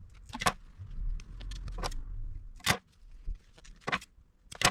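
Small parts being handled at a workbench: about five sharp clicks and knocks, with a low rumble about a second in.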